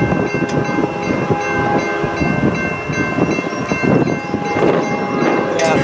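Approaching diesel freight train: the locomotive horn sounds over the rumble of the engines, while a grade-crossing bell rings steadily with a regular beat.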